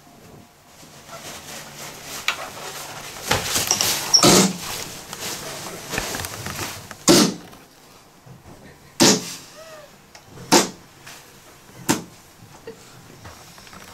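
Toilet paper rustling as it is unrolled and tossed about on the floor, followed by four short loud sounds spaced a second or two apart.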